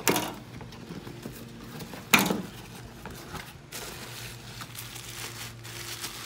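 Crumpled packing paper crinkling and rustling as hands dig through a small cardboard box, with two sudden louder noises: one at the very start and one about two seconds in.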